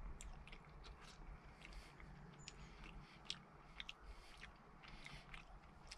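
Faint, irregular mouth clicks of a person chewing a mouthful of cooked rice that is still a little chewy.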